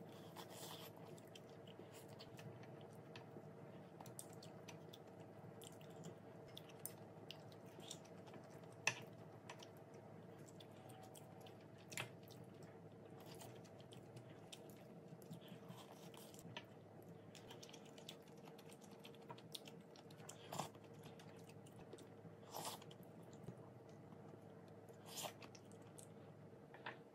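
Faint eating sounds: quiet chewing with scattered light clicks of chopsticks and a spoon against ceramic bowls and a plate, over a steady low hum. The sharpest clicks come about 9 and 12 seconds in.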